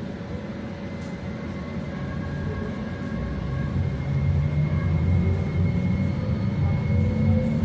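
Train running, a steady low rumble with faint whining tones above it, growing louder about halfway through.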